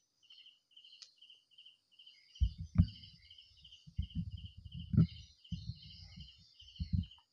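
A cricket-like insect chirping steadily at one pitch, about three chirps a second, over a faint high hiss of other insects. From about two and a half seconds in come irregular low thumps and knocks of the phone being handled and moved; two of them, a little after the start of that stretch and near the middle, are the loudest sounds.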